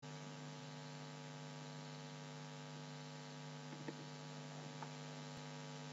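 Faint steady electrical hum, a buzz of several even tones, under an otherwise silent recording, with a faint click about five seconds in.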